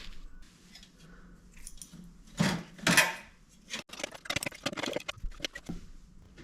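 Light clattering and clinking of metal objects being handled: two louder scraping rustles about two and a half and three seconds in, then a quick run of small clicks.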